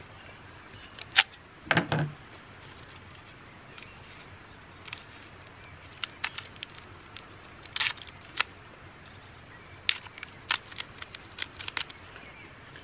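Hands handling a spool of cord and a small tool: scattered clicks and brief rustling, with a handful of louder clicks about a second in, around two seconds, near eight seconds and in a quick cluster towards the end.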